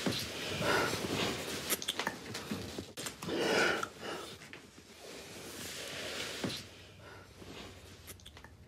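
Heavy breathing and wet lip smacks of two people kissing, with short clicks. The loudest breath comes about three and a half seconds in, and the sounds grow quieter over the last couple of seconds.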